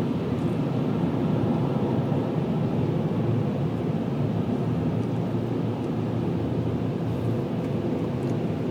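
Automatic car wash machinery running with a steady, low-pitched noise.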